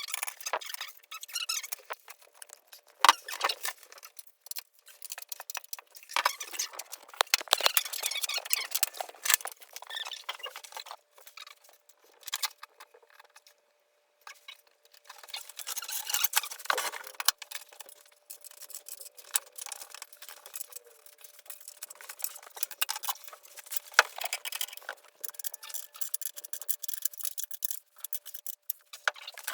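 Irregular clicks, clinks and light metallic rattles of tools and BMX parts being handled and fitted during the bike's assembly, thin-sounding, with a faint steady tone underneath for much of it.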